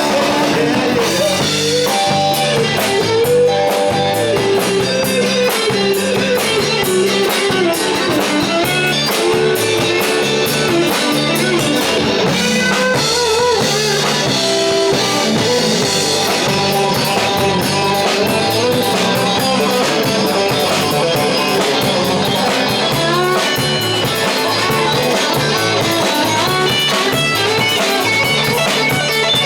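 Live rock band playing an instrumental break: a lead guitar line with bending, wavering notes over drum kit and bass.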